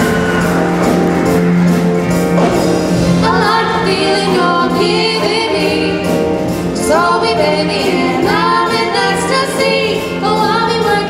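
A woman singing into a handheld microphone, amplified over instrumental music; her voice comes in clearly about three seconds in.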